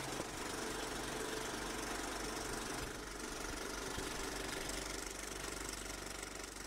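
Cine film projector running steadily, fading out near the end.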